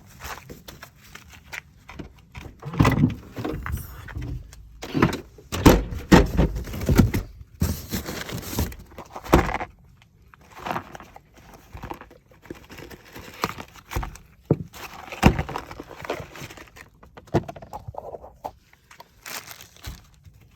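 Footsteps, then an irregular run of clunks, rattles and rustling as parts and packaging are rummaged through in a car boot to find a new bolt.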